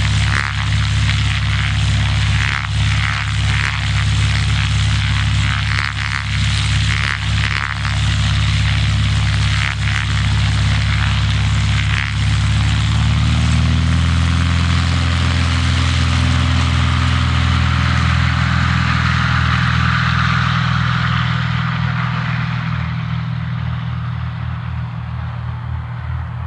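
Cessna 182A's propeller and six-cylinder Continental O-470 engine running steadily and loud. About halfway through, the engine note shifts in pitch. The higher part of the sound fades away over the last few seconds.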